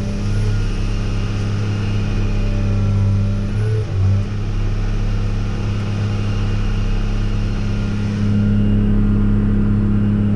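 Combine harvester's engine running steadily under load, with a brief dip about four seconds in and a slight rise near the end.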